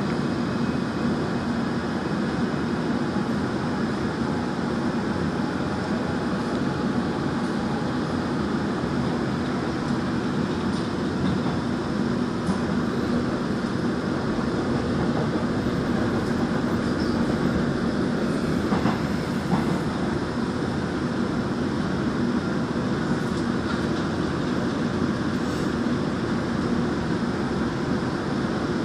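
Gwangju Metro Line 1 train running steadily just after leaving a station, heard from inside the passenger car: an even running noise of wheels on rail with a constant low hum.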